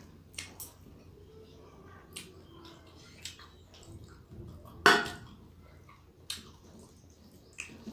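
Fingers squishing and mixing rice with curry on a plate, with small clicks against the plate. About five seconds in, a steel bowl clanks once, the loudest sound.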